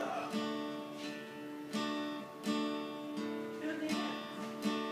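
Acoustic guitar strummed in a steady chord pattern, with about seven even strums spaced roughly three-quarters of a second apart.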